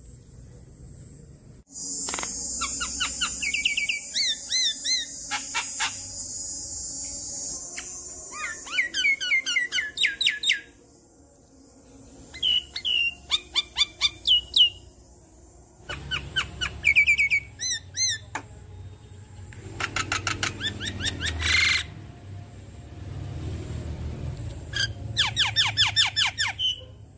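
Javan myna (jalak kebo) calling in full song: a long harsh rasping screech from about two seconds in that lasts several seconds, then repeated bursts of rapid, sharp sweeping notes separated by short pauses.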